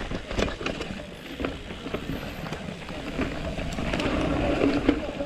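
Downhill mountain bike rattling over a rough trail: a rapid, irregular clatter of knocks from the bike over a steady rush of tyre and wind noise.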